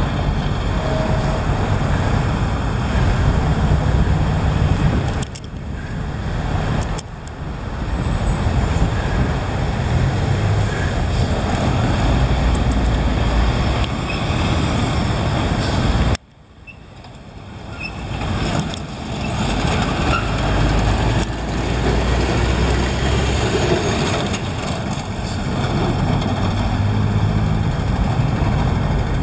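Scania R440 diesel truck running as it pulls a low-loader carrying a crawler bulldozer past, a steady deep rumble with passing traffic. The sound drops off suddenly about halfway through and builds back up over a couple of seconds.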